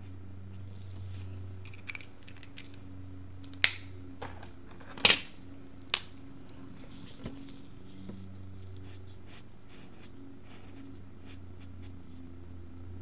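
Felt-tip markers being handled while colours are swapped: a few sharp plastic clicks, the loudest a quick double about five seconds in, like caps pulled off and snapped on. Faint scratching of a marker tip on paper comes before and after.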